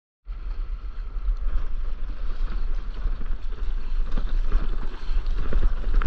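Wind buffeting the microphone in a heavy, gusting rumble, with water sloshing and splashing around a stand-up paddleboard moving over the sea.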